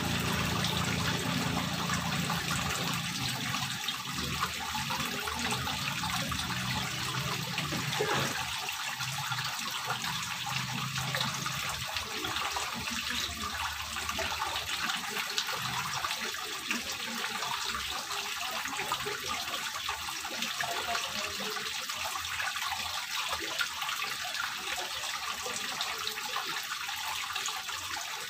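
Water flowing down the grooved face of a stone wall fountain and spilling into its small pool, a steady trickling and splashing.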